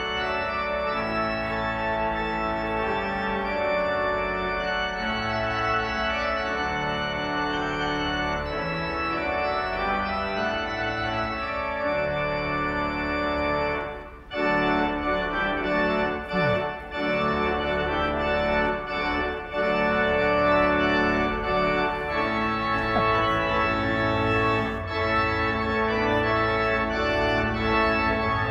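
Church organ playing a processional in sustained, changing chords. The sound drops out briefly about halfway through, then carries on.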